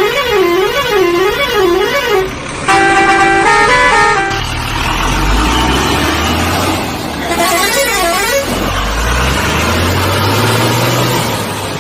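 Electronic toy-vehicle sound effects. First comes a warbling siren that rises and falls a few times a second, then a short stepped horn-like tune. After that an engine rumble with hiss rises slowly in pitch, and a brief siren warble cuts in near the middle.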